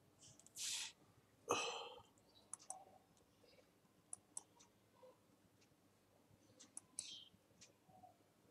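Faint, scattered computer mouse clicks, single and in quick pairs. A short, louder burst of noise comes about a second and a half in.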